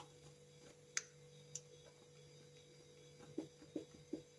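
Faint clicks and light taps of a steel spoon scooping custard powder out of its packet over a glass bowl: one sharp click about a second in, then a few soft taps near the end.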